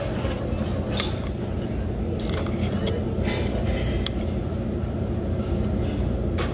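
A few sharp clinks of a fork and a ceramic soup spoon against a porcelain soup bowl as a dumpling is scooped up, over a steady low background rumble and murmur.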